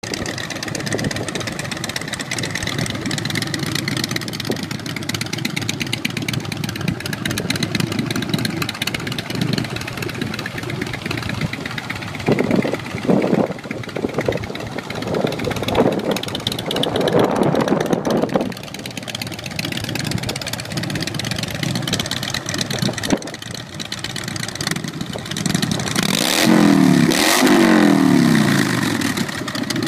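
Harley-Davidson 96 cubic inch V-twin through aftermarket Vance & Hines pipes, idling steadily, then blipped a few times in the middle. Near the end it is revved up and let fall back twice.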